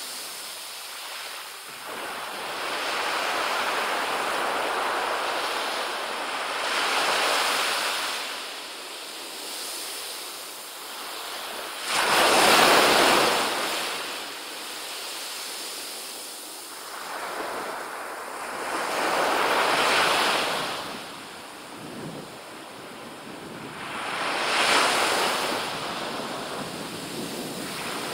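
Small ocean waves breaking and washing up a sand beach in repeated surges every few seconds, the loudest starting suddenly about twelve seconds in.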